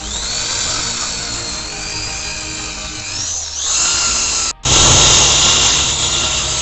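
Power drill spinning an abrasive sanding disc against the steel of an axe head, a steady motor whine with a rasping of abrasive on metal. The whine rises in pitch at the start and again about three and a half seconds in, breaks off for an instant a little later, then runs on steadily.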